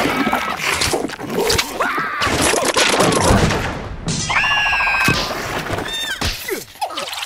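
Animated cartoon soundtrack: high squeaky, wordless cries from the cartoon larvae, gliding up and down, mixed with several sudden thuds and crashes.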